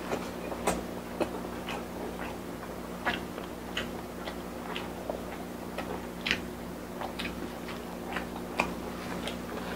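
Close-miked chewing of fried dumplings with the mouth closed: short, sharp, irregular clicks and crunches about one or two a second, over a steady low hum.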